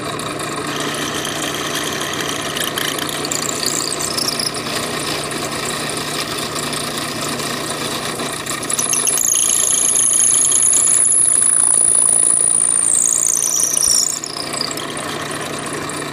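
Benchtop drill press motor running steadily while its bit bores into a wooden upright bass bridge. About nine seconds in, a loud high-pitched squeal joins, slides down in pitch and stops about five seconds later.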